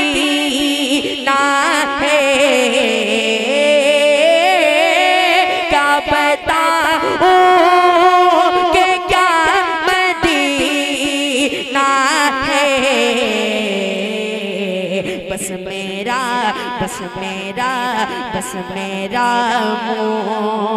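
A boy's solo voice singing a naat into a microphone, drawing out long wavering notes that rise and fall in ornamented runs.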